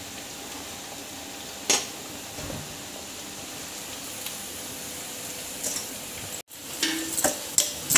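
Shredded cabbage, carrot and capsicum sizzling in hot oil in a kadhai, a steady hiss with a single sharp click just under two seconds in. Near the end, after a momentary break, a wooden spatula clacks against the pan as it stirs.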